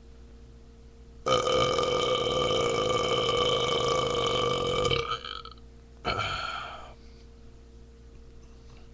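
A man burping: one long, drawn-out belch of nearly four seconds held at a steady pitch, then a second, shorter burp about a second later.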